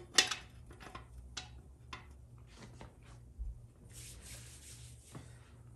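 Light metal clicks and taps as a transmission band is laid into position inside a Dodge 48RE transmission case: one sharp click just after the start, a few faint taps, then a soft rub about four seconds in, over a faint steady hum.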